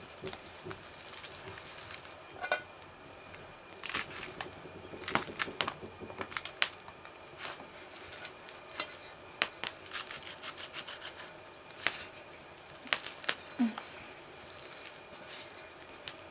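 Hands sorting, tearing and pressing fresh leafy greens into an aluminium pot: irregular crisp crackles and snaps of leaves and stems, with a few sharper clicks.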